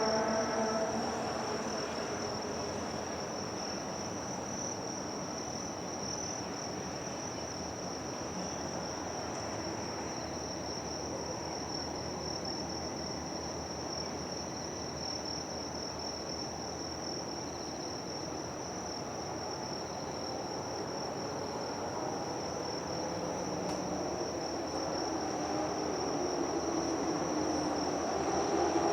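Insects chirring in one steady, high-pitched drone over a low, even background hum. A lower pitched sound fades out in the first second and comes back in near the end.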